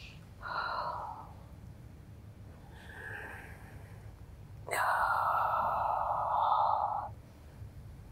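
A woman's audible breathing in time with a Pilates chest-opening movement: a short breath about half a second in, then a longer, louder breath of about two and a half seconds starting past the middle.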